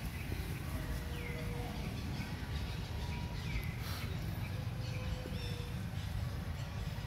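Forest ambience with a steady low rumble. Birds give two short downward-sweeping chirps, about a second in and again past the middle.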